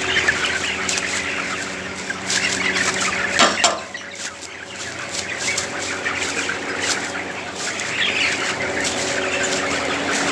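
A large flock of chickens clucking and cheeping together, with a steady hum underneath and scattered knocks. One louder, sharp sound stands out about three and a half seconds in.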